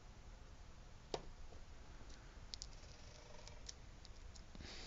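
Fingernails picking at old, crumbling tape on a cardboard box, heard faintly: one sharp click about a second in, then a scatter of small ticks and a brief rustle near the end.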